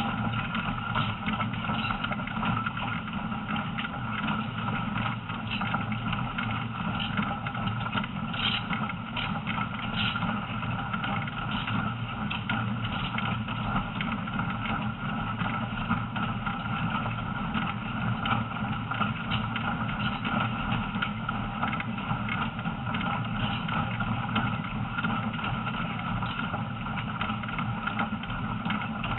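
Heritage tourist train running through forest, heard from on board: a steady rumble of engine and wheels on the rails, with a few light clicks and rattles.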